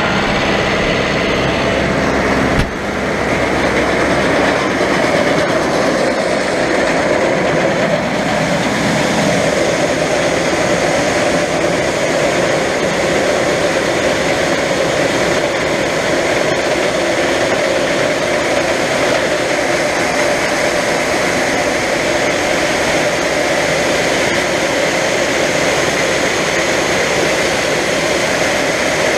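John Deere tractor's diesel engine running steadily at high revs, brought up to about 2,000 RPM, heard from inside the cab. There is one short knock about three seconds in.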